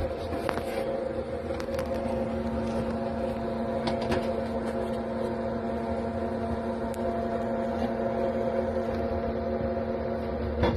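Small square cooling fan inside a cake display fridge running with a steady, even hum, with a few light ticks of handling.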